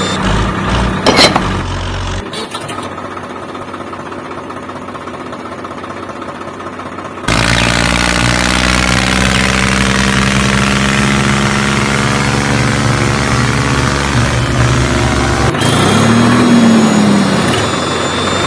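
Tractor engine running, with a sharp knock about a second in. The sound changes abruptly twice: quieter from about two seconds in, then louder and steady from about seven seconds in, with a brief rise and fall in pitch near the end.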